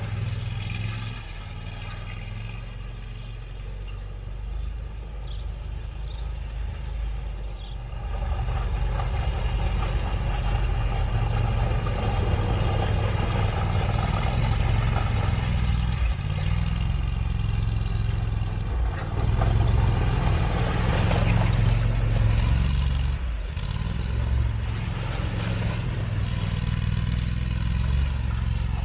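Argo 6x6 amphibious vehicle on freshly fitted plastic snow tracks, driving over packed snow with its engine running steadily. It gets louder from about eight seconds in as it comes back closer.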